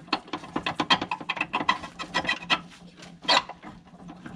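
Irregular metallic clicks and rattles of a hand driver working the Torx bolts of a Polaris RZR XP Turbo's inner clutch cover, with a louder clack about three seconds in.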